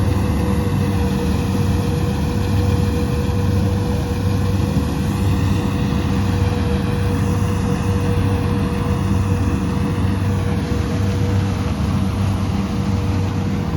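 Rice combine harvester running steadily at working speed: a constant engine drone with a steady whine on top.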